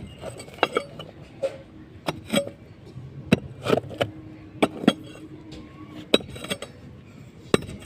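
Metal hand tool striking bricks and rubble: about a dozen sharp, irregular clinking blows, some with a short metallic ring.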